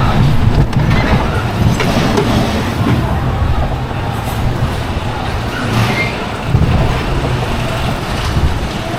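Wild mouse roller coaster car rumbling along its steel track, a loud, steady low rumble under a rush of noise.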